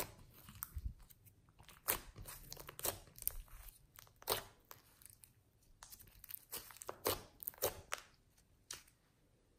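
Clear slime with modelling clay mixed in being kneaded and folded by hand, giving irregular sticky pops and crackles as it is squeezed and pulled apart.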